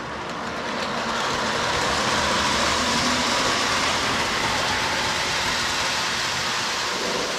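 Lionel model train running along its track, a steady rolling rumble that grows a little louder about a second in.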